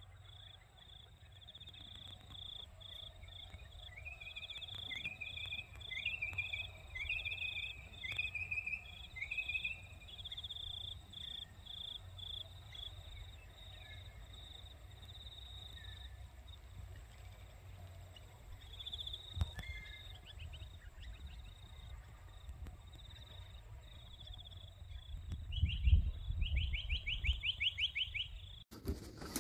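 Outdoor field ambience. An insect chirps steadily in a high, evenly pulsed tone, while a bird repeats short rising calls over several seconds and gives a quick trill near the end. Wind rumbles on the microphone, gusting stronger toward the end.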